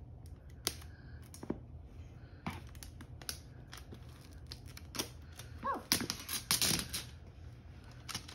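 Small scissors snipping at packing tape on a plastic toy egg, a series of sharp clicks, followed near the end by a denser crackly stretch as the tape is pulled off the shell.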